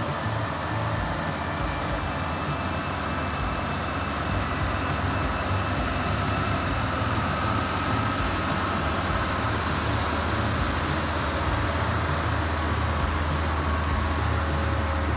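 Heavy vehicle's diesel engine running steadily with a deep, even hum.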